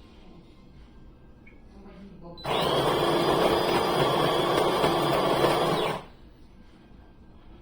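De'Longhi Magnifica Start fully automatic espresso machine running with a loud, steady motorised whir and a held whine. It starts abruptly about two and a half seconds in and cuts off about three and a half seconds later.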